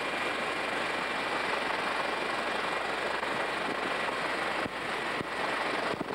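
Aircraft engine noise heard on board in flight: a steady hiss with a faint high whine, cutting out briefly three times near the end.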